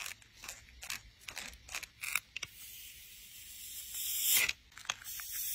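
Glued sneaker layers crackling with sharp little clicks as gloved hands pull the sole and upper apart. Then a utility knife blade slices through the foam cushion with a hiss that grows louder over about two seconds and stops suddenly, and a shorter cut comes near the end.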